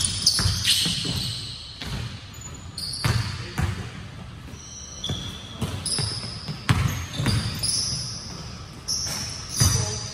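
Basketball being dribbled on a hardwood gym floor: irregular thuds, some a fraction of a second apart and some with longer gaps, mixed with many short, high sneaker squeaks. The sound echoes in a large hall.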